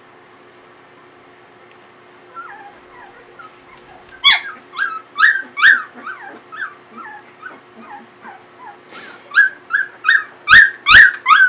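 22-day-old Samoyed puppies yipping and whimpering: a run of short calls that fall in pitch, about two a second, starting a couple of seconds in and loudest near the end.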